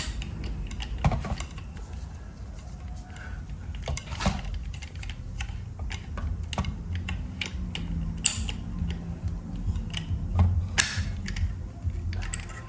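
Irregular small clicks and light clinks from a Ryobi angle grinder being handled while its old disc is taken off, over a low steady background rumble.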